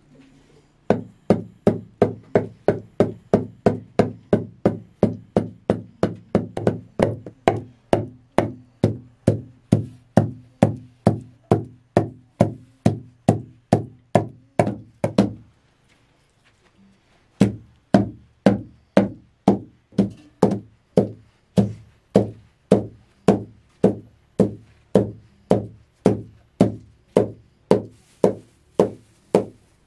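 Steady rhythmic knocking, about two to three strikes a second, each a sharp hit with a short low ring; it stops for about two seconds halfway through, then starts again at the same pace.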